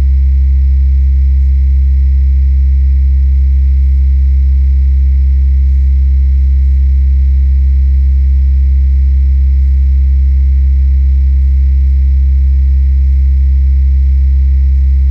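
Steady, deep, unbroken hum with faint higher tones over it, which the owner attributes to the power lines of the electric grid. It is played with the bass boosted and the treble cut.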